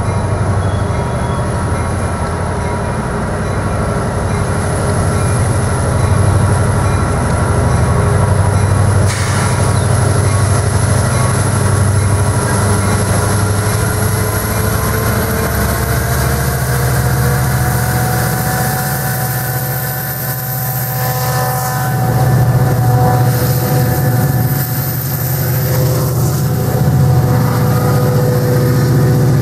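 Union Pacific diesel-electric freight locomotives approach and pass beneath, their engines running with a steady low rumble. Several whining tones rise slightly in pitch about halfway through. Near the end the freight cars roll by underneath.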